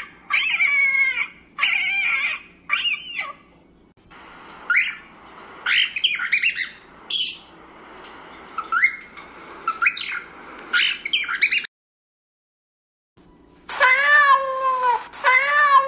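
Pet parrots squawking and chirping: a run of short, repeated pitched calls, then scattered rising chirps and squawks. After a second or so of dead silence, a cat meows twice near the end.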